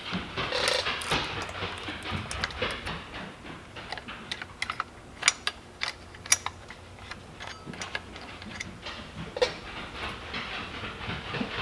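Irregular sharp metal clicks and light rattling of hands working on a Stihl MS193T chainsaw's bar and chain during a chain change, with the clicks thickest around the middle.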